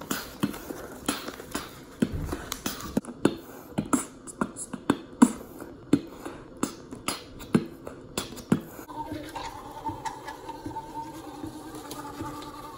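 Beatboxing: a rhythmic mouth-percussion beat of sharp kick and snare sounds, which stops about two-thirds of the way through and gives way to the steady buzz of an electric toothbrush.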